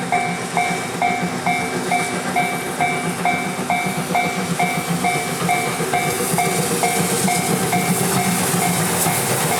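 Level-crossing warning bell ringing in an even two-tone ding about twice a second, over the rumble of a train. From about six seconds in a hiss grows louder as the C58 steam locomotive and its coaches come closer.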